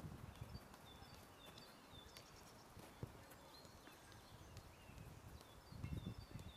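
Faint outdoor ambience: small birds chirping intermittently, with soft low thuds of a football being tapped along artificial turf, a little louder about six seconds in.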